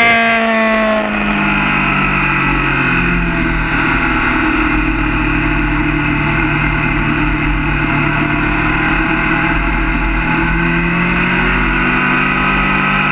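Yamaha FZ6 inline-four engine heard on board. Its pitch falls in the first second as the throttle is rolled off and the bike slows, then it runs at lower revs with gentle rises and falls through the bends.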